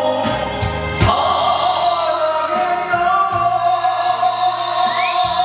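A man singing into a karaoke microphone over a loud karaoke backing track.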